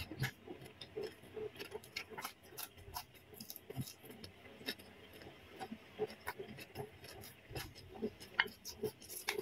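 Soft chewing and faint, irregular mouth clicks from someone eating fried udon noodles with her mouth closed.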